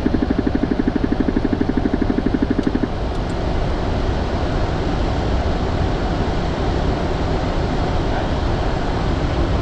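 Steady cockpit noise of a business jet climbing after takeoff: engine and airflow noise. For about the first three seconds a rapidly pulsing electronic tone, about ten pulses a second, sounds over it and then stops.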